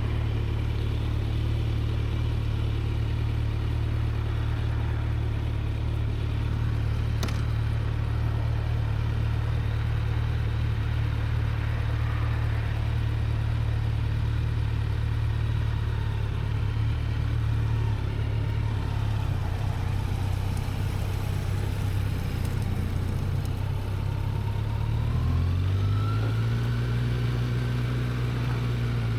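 Kawasaki Z900's inline-four engine running at a steady note, then rising in pitch near the end as it picks up revs and holding at the higher note.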